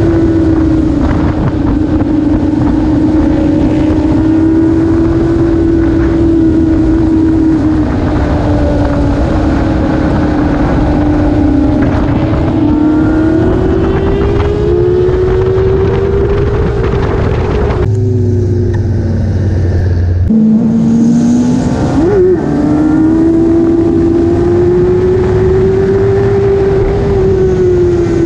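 Motorcycle engine running at a steady highway cruise, its pitch drifting slowly up and down, over wind and road noise. About two-thirds through, the sound drops to a lower steady hum for a couple of seconds, then the engine returns with a quick rise and fall in pitch.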